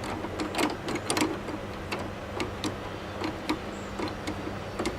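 Light, irregular metal clicks and taps from a hand tool tightening a bolt during table saw assembly, about two a second.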